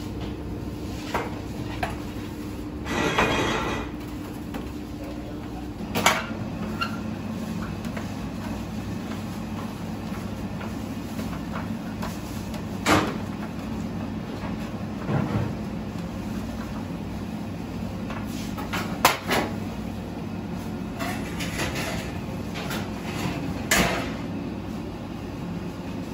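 Commercial kitchen work sounds over a steady hum. Early on a metal baking tray slides and scrapes, followed by scattered sharp clacks and knocks of metal pans and utensils.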